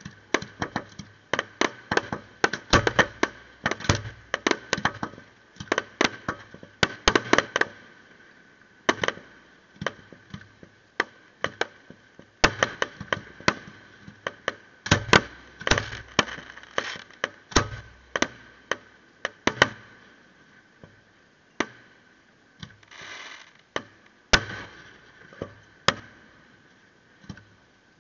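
Fireworks display: aerial shells bursting in sharp bangs, dozens of them in fast irregular volleys, with thinner stretches around 9 to 12 seconds in and again near the end.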